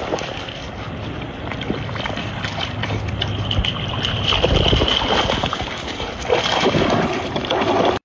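Dogs wading into a shallow pond, water sloshing and splashing around their legs, louder about halfway through and again near the end.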